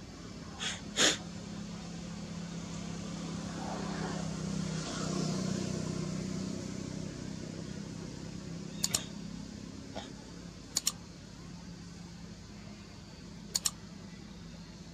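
A low, steady motor hum that swells about five seconds in and then eases off, with a few short sharp clicks scattered through it, some in quick pairs.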